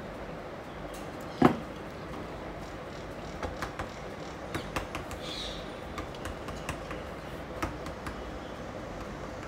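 Kitchen utensil handling while cake batter is spooned into a silicone cupcake cup: one sharp knock about a second and a half in, then scattered light clicks and taps.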